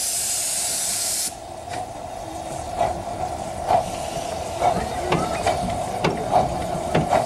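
A 15-inch-gauge Greenly 4-6-2 steam locomotive hissing loudly from its open cylinder drain cocks, the hiss cutting off abruptly just over a second in. The train then runs on with sharp, rhythmic knocks and clicks that come more often as it gathers speed.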